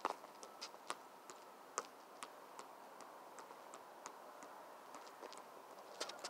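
Football being juggled on the head: a string of light taps, about two or three a second, faint, with a quicker cluster of taps near the end.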